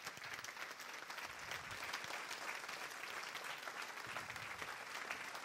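Congregation applauding: many hands clapping in a steady, even patter.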